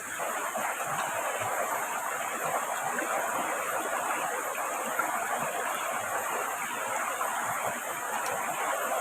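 Steady rush of water, an even hiss that steps up slightly in level at the start and then holds.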